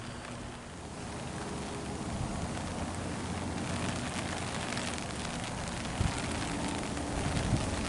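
Steady rain pattering, growing a little heavier after about a second, with a couple of low thumps near the end.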